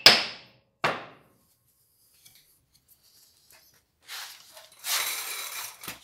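Two sharp metal-on-metal blows with a short ring, the last about a second in, ending a run of hammer blows that seat a wooden handle on a file's tang. After a quiet spell, about five seconds in, there is a second of scraping and handling noise from metal parts.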